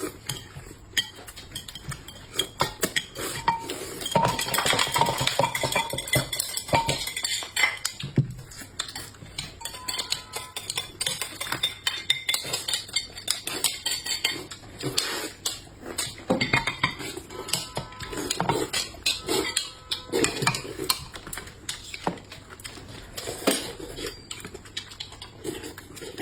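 Tableware at a meal: eating utensils clinking and scraping against bowls and plates in irregular clicks, with short ringing clinks now and then.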